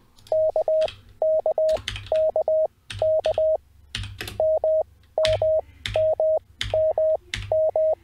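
Morse code practice tone at 630 Hz keying the letters K and M one after another, at 20 wpm character speed with wide gaps between letters (Farnsworth timing), with computer keyboard keystrokes in between as each letter is typed in.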